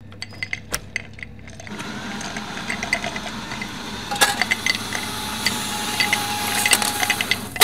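A small electric motor of a coffee-bar appliance running, with a scatter of sharp clicks and rattles over it; it comes in about a second and a half in, and a sharp knock stands out about four seconds in.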